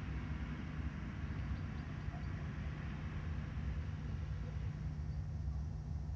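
Steady low drone of a running engine, with a constant low hum and an even hiss over it.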